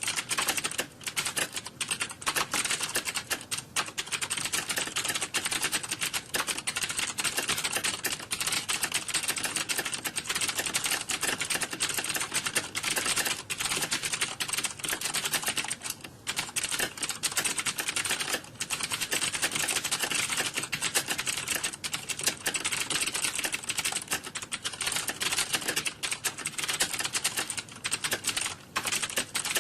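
Many computer keyboards being typed on at once, a dense, unbroken clatter of key clicks like a room full of typists during a typing exam, with only a few momentary lulls.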